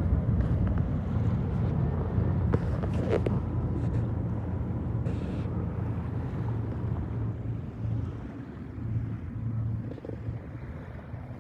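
Wind buffeting the microphone aboard a yacht under sail, a steady low rumble with a few short clicks about two and a half to three seconds in.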